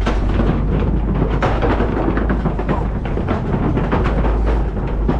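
Open-air safari truck driving on a rough track: a steady low rumble with many small knocks and rattles.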